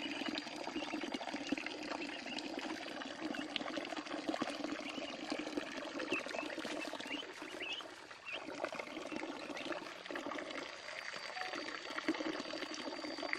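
Water pouring and trickling steadily into a shallow pool, with small splashes.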